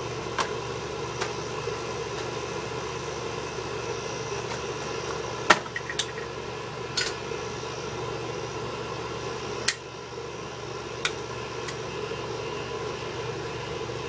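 Steady low background hum, with a handful of short, sharp clicks at irregular intervals, the strongest about five and a half seconds in.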